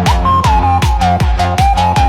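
Electronic dance music with a steady, pounding kick drum and a synth lead that glides between notes.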